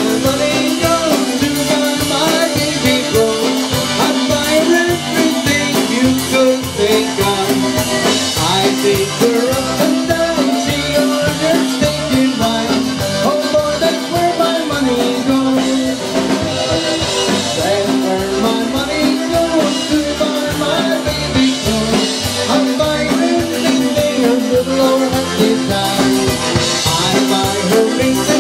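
Live band music: a man singing lead over a drum kit and backing band, with a steady, upbeat rhythm.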